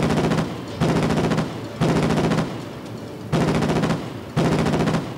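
Saab ASW-601 anti-submarine grenade launchers firing a multi-grenade salvo of 36. The firing comes as rapid rattling bursts of launches, each about half a second long and about one second apart.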